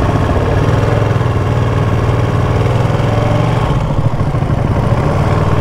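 Ducati Panigale V2 L-twin engine running at low, steady revs as the bike moves off at walking pace.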